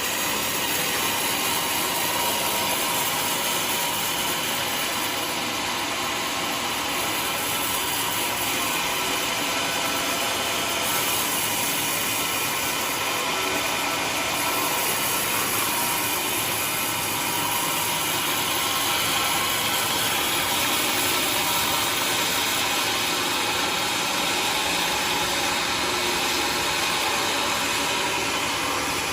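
Homemade sawmill running steadily, its saw cutting through a waru log to make planks.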